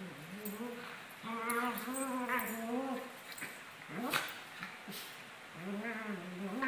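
Maltese dogs play-fighting, growling and grumbling in two long wavering bouts, with a short higher cry about four seconds in.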